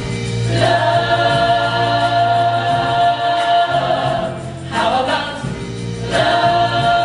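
A musical-theatre cast singing together as a choir, holding long sustained chords phrase after phrase, with brief breaks between phrases.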